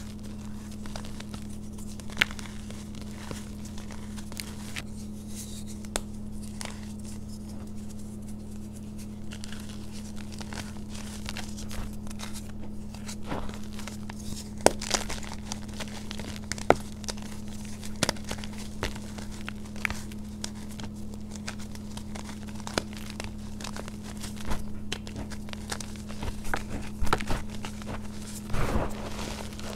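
Hands crumbling and squeezing yellow powder reforms in a bowl of loose powder: soft crunches and scattered crackles as the pressed blocks break apart, growing busier near the end.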